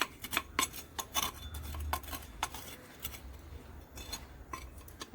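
Irregular clicks and scrapes of a small hand tool digging and loosening potting soil in a plant pot.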